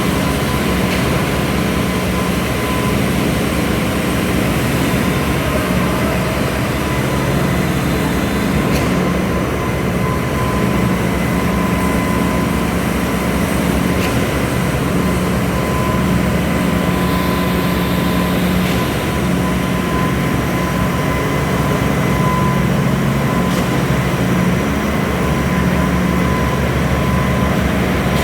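Heavy diesel concreting machinery, the concrete pump and mixer, running steadily through a slab pour. The sound is a loud, continuous low engine hum with a thin steady whine above it.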